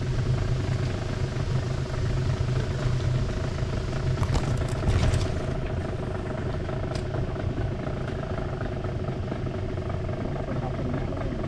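A small engine running steadily at constant speed, with a short cluster of sharp crackles and clicks about four to five seconds in.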